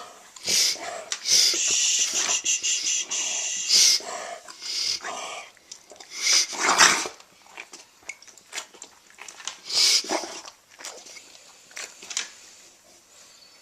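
Dog coughing in repeated hacking fits: a long continuous fit from about one and a half to four seconds in, then shorter coughs around seven and ten seconds in, tapering off near the end.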